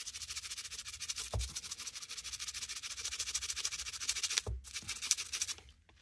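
Toothbrush bristles scrubbing the aluminum scales and liners of a Swiss Army knife in fast, regular strokes to lift stuck-on gunk, with a couple of soft knocks. The scrubbing stops shortly before the end.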